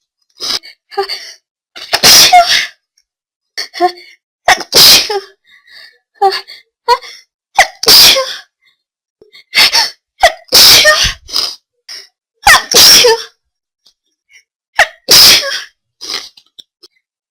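A person sneezing repeatedly: six loud sneezes about two to three seconds apart, each preceded by short gasping breaths.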